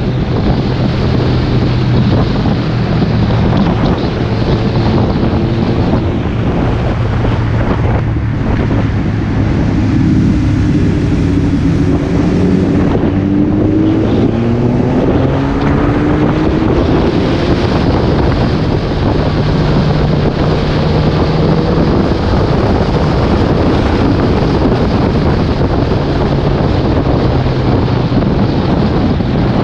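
Motorcycle engine running under heavy wind rush on the microphone, its note rising and falling with throttle and gear changes through the bends.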